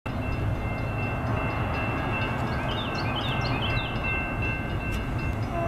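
Steady low rumble of an approaching diesel freight locomotive in the distance. A bird chirps a quick run of falling notes about midway through.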